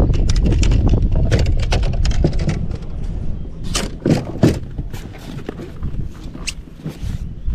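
Irregular knocks and clicks, the loudest a few seconds in, over a low rumble that drops away about three seconds in and comes back near the end.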